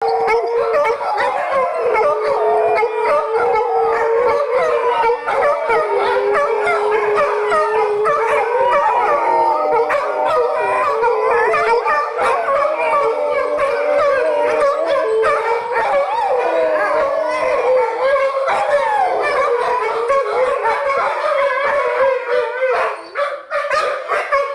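Several pit bulls howling together in a chorus, their long wavering howls overlapping at different pitches; the howls break up into shorter, choppier calls near the end.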